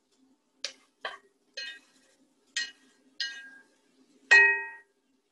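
Metal spoon clinking against cookware: about six separate sharp clinks with brief ringing, the last one, near the end, much the loudest.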